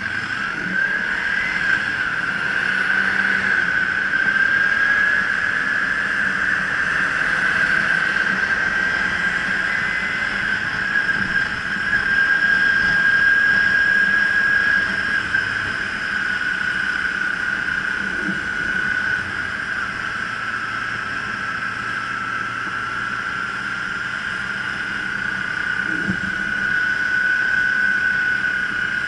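Kawasaki Ninja 300's parallel-twin engine running under way at a steady cruise, heard from the rider's helmet with a steady rushing noise. A strong, steady high-pitched whine climbs briefly in the first second, then holds, drifting only slightly in pitch.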